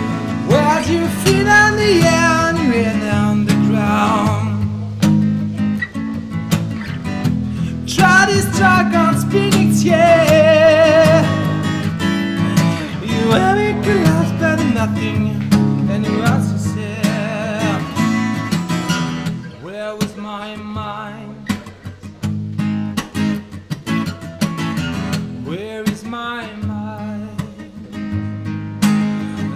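Background music: a song with strummed acoustic guitar and a singing voice that comes and goes in phrases.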